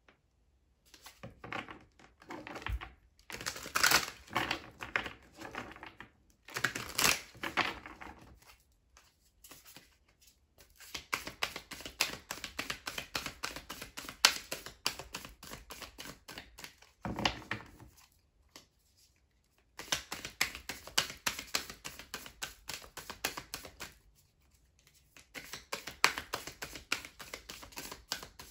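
A deck of tarot cards being shuffled and handled on a table: long runs of quick card clicks and flutters in several bouts, with short pauses between them.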